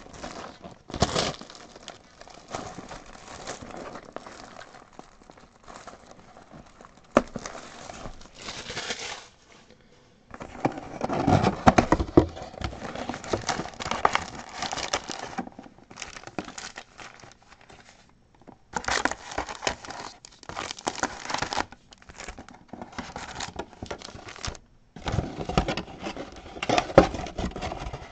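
Plastic shrink wrap crinkling as it is torn off a cardboard trading card box, then foil-wrapped card packs rustling as they are pulled out of the box and stacked, in irregular bursts with short pauses.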